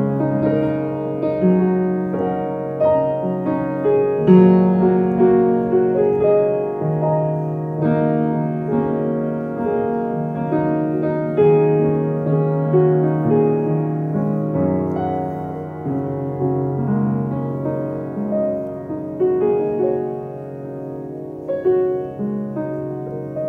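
Background piano music with held, overlapping notes.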